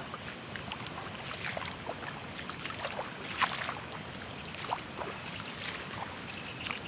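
Footsteps sloshing and splashing through shallow water and mud in a rice field: short irregular splashes over an even background hiss.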